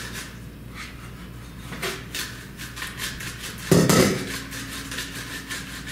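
Kitchen utensils and dishes being handled: a run of light, irregular taps and clinks, with one louder knock and clatter about four seconds in.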